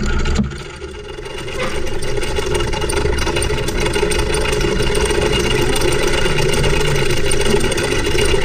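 An engine running steadily at an even speed, a continuous mechanical drone that dips briefly about a second in and then holds level.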